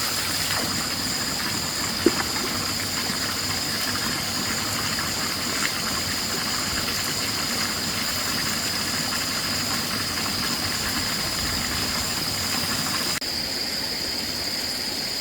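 Steady forest ambience: a continuous high insect drone over the hiss of running stream water. A single click comes about two seconds in, and the hiss thins about thirteen seconds in.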